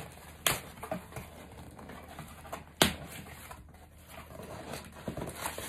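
Cardboard shipping box opened by hand: two sharp snaps of tape and cardboard about two seconds apart, with scattered crackling and rustling of the flaps between them and again near the end.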